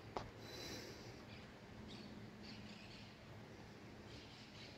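Quiet room tone with two faint clicks right at the start.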